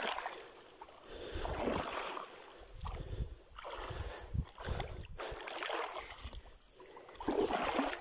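Water swishing and sloshing around a small boat moving through water, in repeated surges about every second and a half.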